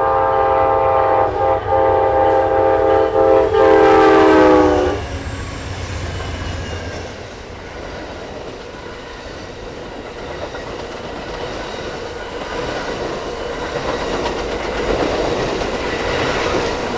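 Locomotive air horn sounding a loud multi-note chord with a few brief dips. It slides slightly down in pitch and cuts off about five seconds in. After that the train rolls by with a steady rumble and clickety-clack of wheels on rails, growing louder near the end.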